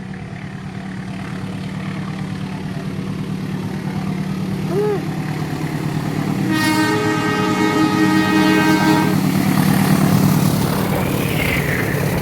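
Diesel train approaching, its engine drone growing steadily louder, with one multi-tone horn blast held about two and a half seconds beginning just past the midpoint; the train is loudest as it comes close in the last few seconds.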